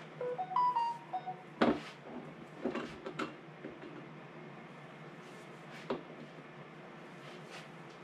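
Glass mason jars and a plastic canning funnel being handled on a countertop while raw sausage is packed: a few short ringing clinks, then scattered knocks and taps.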